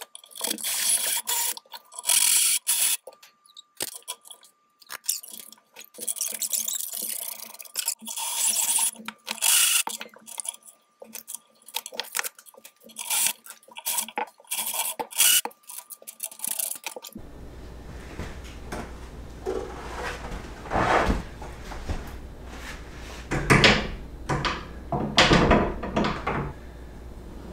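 A cordless drill bores holes into a pine door in short, repeated spells for the door's hangers. After that, the bypass barn doors roll along their overhead steel rails on their hanger wheels, with irregular rumbles and knocks.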